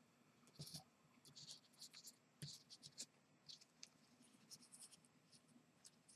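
Faint, scattered scratchy rustles and light taps of small punched paper pieces being handled and positioned on a card, with a couple of soft knocks against the work surface.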